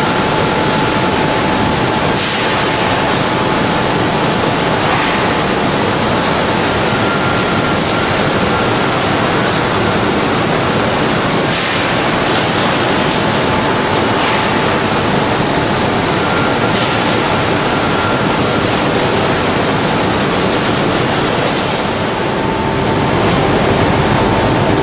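Continuous loud foundry plant noise: an even rushing hiss with a faint steady whine held over it. The whine shifts in pitch near the end.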